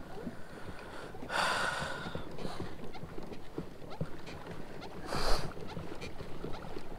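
Pedal-drive kayak under way: a run of light, irregular clicks and knocks from the drive and hull. Two short rushing sounds stand out, one about a second in and a louder, briefer one about five seconds in.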